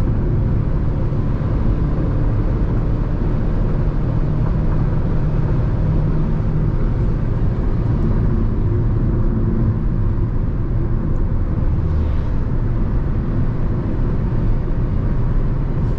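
Steady, loud road and wind noise inside the cabin of a Jeep Renegade T270 at highway speed, around 140 km/h. The wind noise is unusually strong for the car; the driver does not know its cause.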